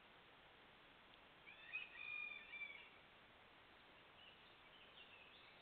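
A bird calls once about a second and a half in, a wavering, drawn-out note lasting about a second and a half, over a steady faint hiss. A few faint chirps follow near the end.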